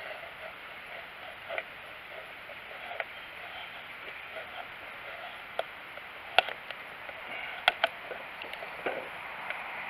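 Cold Steel Finn Bear knife's thin hollow-ground stainless blade shaving curls off a wooden stick, a few sharp, irregular clicks as strokes catch and cut through, the loudest two about six and a half and seven and a half seconds in.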